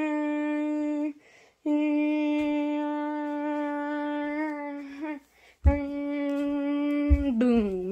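A child humming three long, steady, droning notes as a vocal sound effect for a toy monster, the last one sliding down in pitch at the end. Two low thumps sound during the third note, the loudest at its start.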